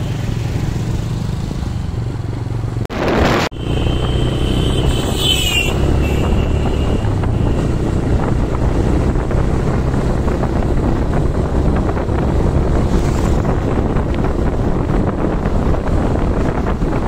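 TVS Raider 125's single-cylinder engine running as the motorcycle picks up speed, with wind rushing over the microphone. About three seconds in there is a sharp knock and a brief dropout, and a short high tone follows a second later.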